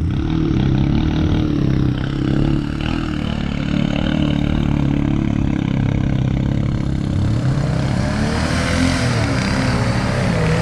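Off-road 4x4's engine running hard and steady, its pitch rising and falling several times in the second half as the throttle is worked.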